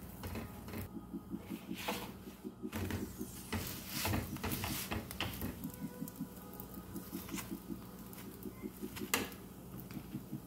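Aloo paratha frying in ghee on an iron tawa: faint sizzling with scattered small crackles and clicks, over a steady low hum.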